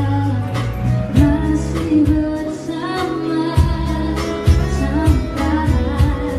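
A girl sings a pop song into a microphone, backed by a small live band of acoustic guitar, bass guitar and drums with a steady beat.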